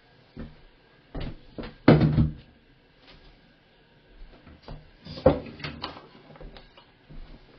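A series of knocks and clatters of hard objects being handled, loudest about two seconds in and again a little after five seconds.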